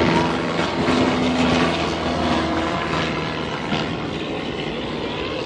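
Small single-engine propeller airplane flying low overhead, its engine drone stepping up in pitch about a second in and falling back around three seconds in as it passes, over a steady rushing noise.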